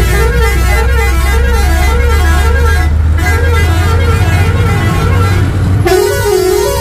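Truck engine running with a steady low hum under a continuous warbling horn-like tone that rises and falls about twice a second. The tone changes to a steadier pattern near the end as the engine hum drops.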